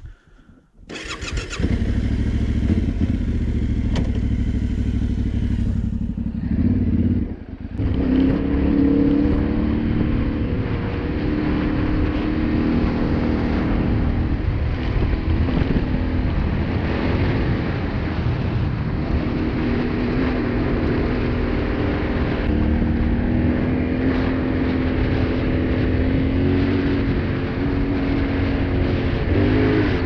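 Yamaha Ténéré 700's 689 cc parallel-twin engine starting up about a second in and running. From about eight seconds in the bike is ridden on country roads, with the engine note rising and falling through the gears.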